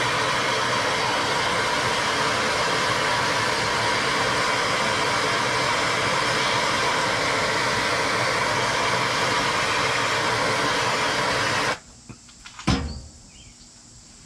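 Handheld gas torch burning with a steady, loud hiss as its flame preheats a lead sinker mold so it is hot enough for pouring. The torch cuts off suddenly about twelve seconds in, and a single sharp knock follows a second later.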